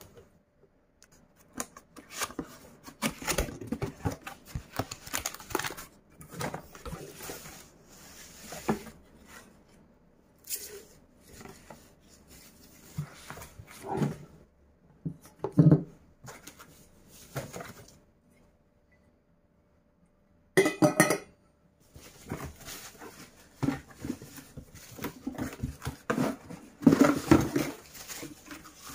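Enamel teapot being unpacked and handled: irregular rustling of its wrapping with knocks and clinks of the enamel body, lid and metal handle. There is a pause of about two seconds two-thirds of the way through, then a sharp rattling clatter.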